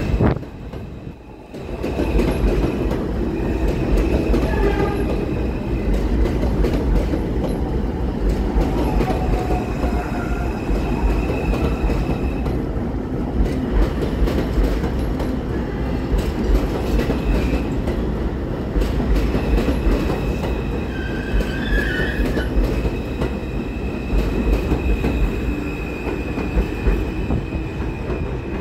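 R142 subway train running through the station at speed without stopping: steady, loud rumble and clatter of wheels on rail. A thin high wheel squeal comes and goes, with a sharper squeal about 22 seconds in.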